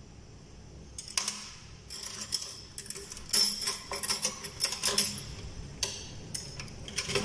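Stainless steel surgical instruments clinking and rattling against each other and their tray as they are rummaged through, a run of irregular metallic clinks starting about a second in.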